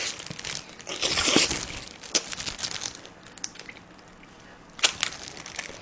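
Close-miked chewing and wet mouth noises of a person biting into and eating a buffalo wing. There is a louder noisy stretch about a second in, scattered small clicks, and one sharp smack near the end.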